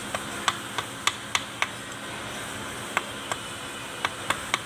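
Sharp metallic clicks in two short runs, about three or four a second, from hand work on the bolted clamp of the propeller shaft, over a steady low hum.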